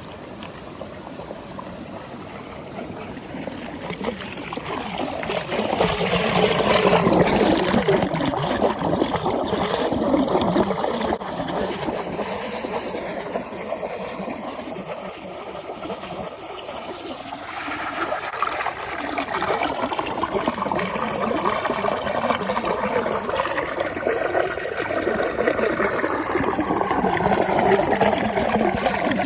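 Running water from a small stream or rain-fed runoff, trickling and gurgling. It grows louder a few seconds in, eases off in the middle, then swells again.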